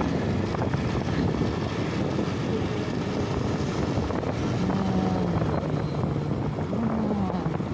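Motorcycle engine running steadily while riding at road speed, with road and wind noise. A faint engine tone wavers up and down in the second half.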